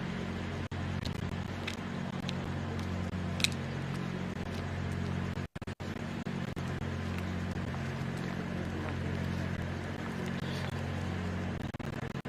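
A steady low engine hum, with a sharp click about three and a half seconds in and a brief dropout in the sound a couple of seconds later.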